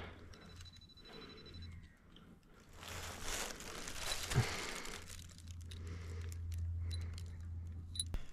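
Soft rustling and crinkling from hands handling fishing hooks and line close to the microphone, swelling about three seconds in, over a low steady hum.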